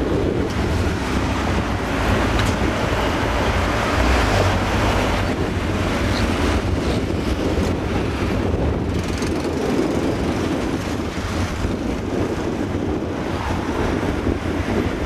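Street traffic noise: vehicles driving, with a steady low rumble of engines and road noise.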